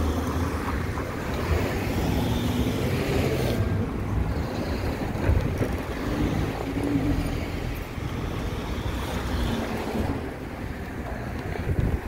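Wind rushing over the microphone with a low road rumble, heard from an electric motorcycle on the move.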